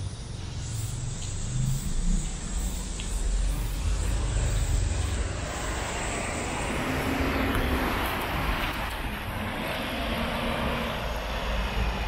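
Low engine rumble that swells into a broad rushing sound about seven seconds in, then eases.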